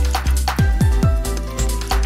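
Electronic background music with a deep, punchy kick drum that drops in pitch on each hit, over held synth tones.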